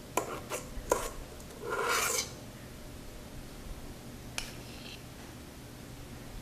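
A spoon clicking a few times, then a short scraping rub about two seconds in as sticky meringue cookie batter is scraped off onto a parchment-lined baking sheet; one more click comes later.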